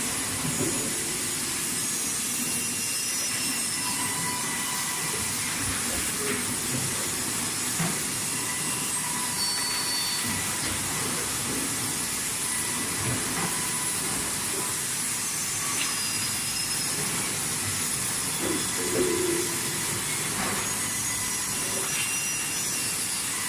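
Sawmill machinery running steadily: a continuous hissing mechanical noise with faint whining tones and small knocks, with no clear starts or stops.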